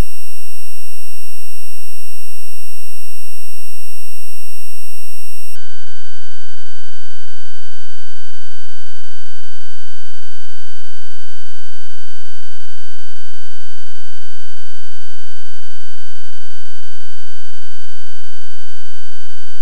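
A song sped up to an absurd tempo, so that the whole track collapses into a loud, steady, high-pitched electronic tone. About five and a half seconds in, the tone drops abruptly to a lower pitch, nearly an octave down, and holds there.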